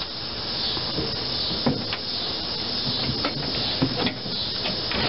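Steady hissing noise with a few light taps and rubs as hands handle a small lawn-tractor front tire wet with soapy water.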